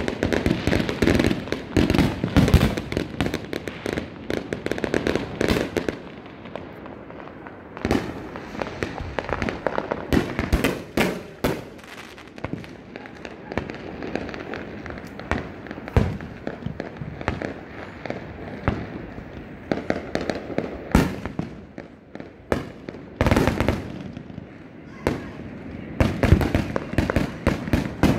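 Aerial fireworks going off all around: a continual run of bangs and rapid crackles. They are heaviest in the first six seconds, thin out in the middle, and thicken again in the last few seconds.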